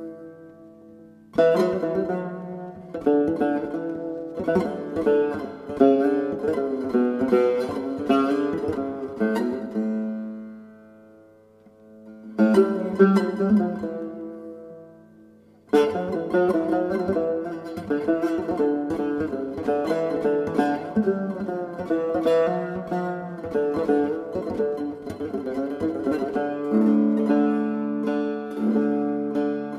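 Turkish tanbur, the long-necked fretted lute, playing a solo unmetered taksim in makam Rast: single plucked notes and quick runs that ring on and die away. Twice, about ten and fourteen seconds in, the playing pauses while a note fades, then starts again with a firm pluck.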